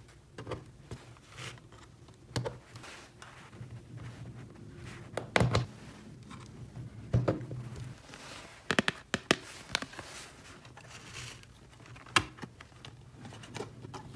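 Small hard plastic pieces clicking and tapping as they are handled, with a quick cluster of clicks about nine seconds in and light crinkling between, over a low steady hum.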